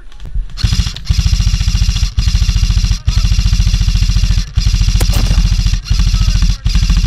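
Airsoft gun firing on full auto at close range, a rapid even rattle of shots in several long bursts broken by brief pauses, starting about half a second in.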